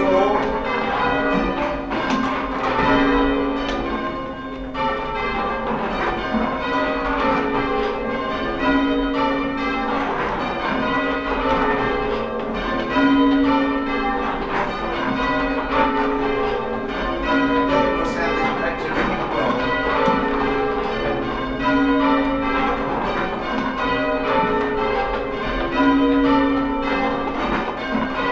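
Church bells rung in changes (English change ringing): a continuous, even stream of bell strokes, with the deepest bell's note coming round every few seconds.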